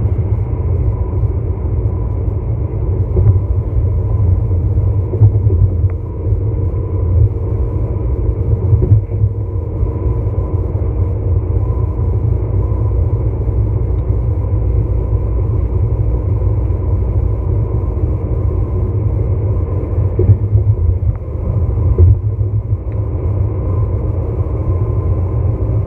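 Steady low rumble of road and engine noise inside a vehicle cruising at highway speed, with a few short thumps from the road surface.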